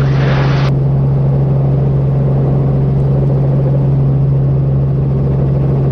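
Helicopter cockpit noise in a hover, heard through the crew headset intercom: a steady low drone from the rotor and engine. The upper hiss drops away suddenly about a second in.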